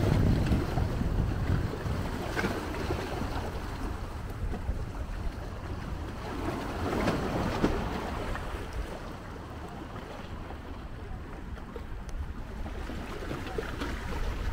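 Small sea waves lapping and washing against a rocky shore, with wind rumbling on the microphone. The wind is loudest at the start, and a wave washes in about seven seconds in.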